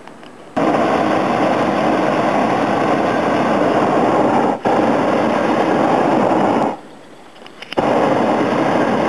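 Hot air balloon's propane burner firing in two long blasts, each starting and stopping sharply, with a gap of about a second between them.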